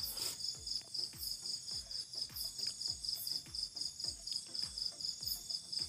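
Insects chirping in a steady, evenly pulsing high trill, about five pulses a second.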